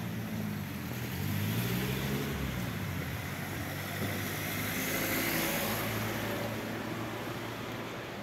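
Cars driving past on a wet road: an engine hums low during the first few seconds, then tyres hiss on the wet asphalt, swelling to a peak about five seconds in as a second car passes close by.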